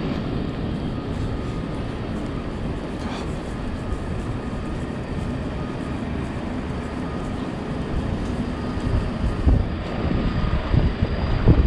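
Steady low rumble of city street ambience. It grows louder and more uneven in the last few seconds.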